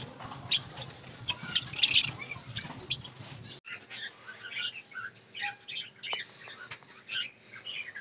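Lovebirds chirping and squawking in rapid, shrill short calls. The calls are densest in the first half, cut off abruptly a little past the middle, then carry on more sparsely.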